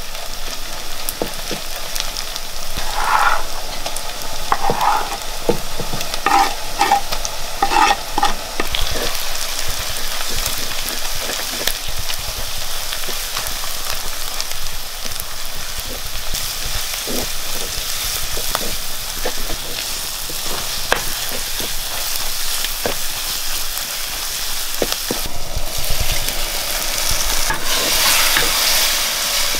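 Food sizzling in hot oil in a pan while it is stirred, with a steady frying hiss and many small clicks and scrapes from the spatula. A few brief squeaks come in the first eight seconds or so.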